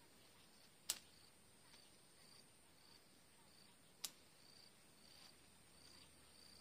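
Two sharp snips of hand pruning shears cutting orange stems, about three seconds apart. Underneath are faint chirps repeating about every two-thirds of a second and a faint steady high hiss.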